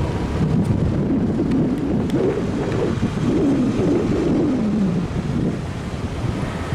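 Wind buffeting the microphone over the low rumble of passing road traffic.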